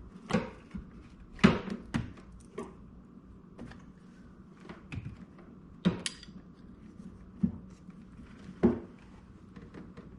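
Shifter parts knocking and clunking as they are handled and fitted into place, about seven separate sharp knocks, the loudest about a second and a half in.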